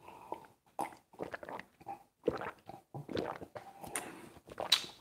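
A man gulping down a drink from a glass: irregular swallows and breaths, with a few sharper clicks.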